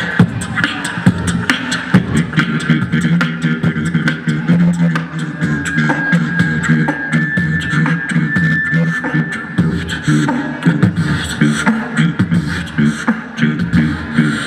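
A group of beatboxers performing together through a PA system: quick vocal kick, snare and hi-hat clicks over a held low bass hum, with a thin high whistle-like tone for a few seconds in the middle.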